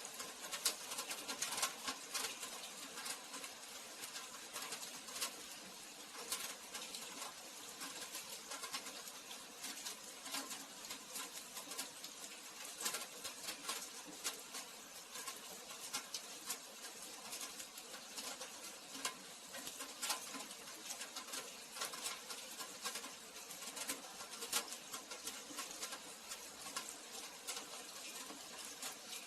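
Rain falling steadily, an even patter dotted with many sharp, irregular ticks of individual drops.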